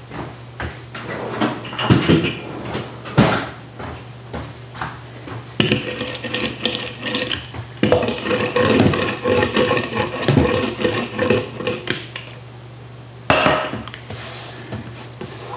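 Wooden rolling pin rolled back and forth over fabric freshly glued onto a wooden case bottom, a continuous rolling rub lasting several seconds in the middle. A few knocks and clatters come before it, and a short rub of hands pressing the fabric down near the end.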